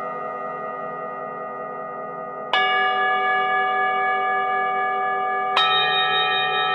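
Singing bowl ringing with a slow wobbling pulse, struck again twice, about two and a half seconds in and near the end, each strike bringing a fresh, brighter ring that carries on.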